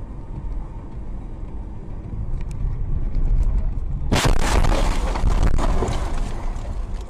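Low vehicle road rumble, then about four seconds in a sudden loud crash lasting about two seconds: a car collision caught on a dashcam.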